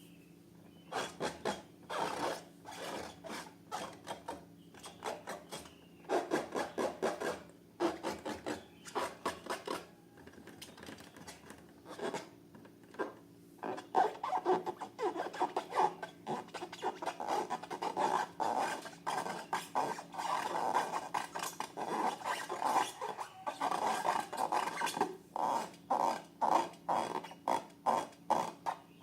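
Slime being worked and mixed by hand: dense runs of short sticky crackles and rubbing scrapes, coming in bursts with short pauses.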